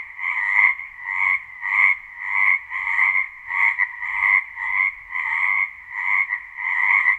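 Frog croaking over and over in an even rhythm, about three croaks every two seconds.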